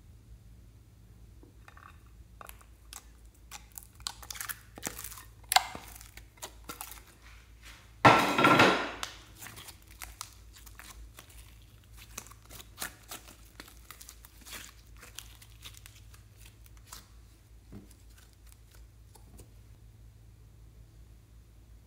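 Soft slime being poured into a glass dish and squeezed and folded by hand: a run of crackles and pops of trapped air, with one loud squelch about eight seconds in, then quieter, sparser pops.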